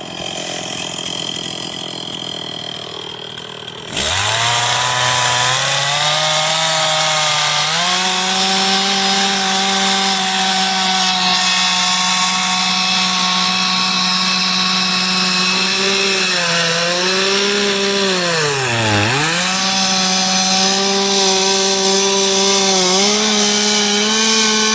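Chainsaw running quietly for about four seconds, then throttled up sharply and held at high revs while cutting into the wooden carving block. The pitch sags briefly twice, once deeply about 19 seconds in, and starts to fall right at the end.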